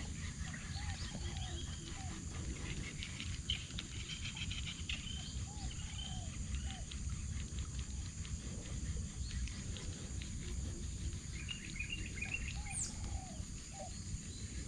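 Birds calling in the open: short arched notes repeated in quick runs, with higher chirps, in two spells separated by a lull, over a steady low rumble.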